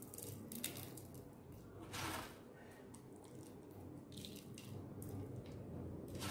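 Faint crackle and rustle of crisp banana sev being scooped from a plastic box and sprinkled by hand onto puris, in a few short bursts with the clearest about two seconds in.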